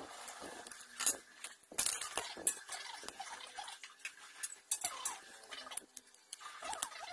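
Irregular small clicks and clinks of hard plastic and metal model parts being handled on a glass tabletop, in the assembly of a Tamiya Mini 4WD kit car.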